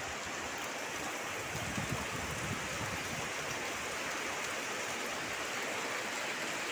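Heavy rain pouring steadily onto a grove of coconut palms and banana plants, an even, unbroken hiss.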